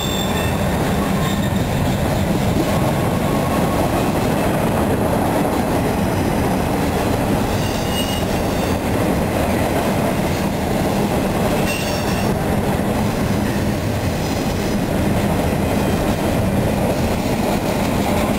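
Intermodal freight train's container cars rolling past: a steady loud rumble of steel wheels on rail, with a few brief faint high wheel squeals.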